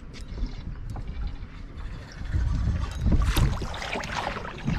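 Water splashing and sloshing as a large red drum thrashes at the surface beside the boat hull, growing louder from about two seconds in, over a steady rumble of wind on the microphone.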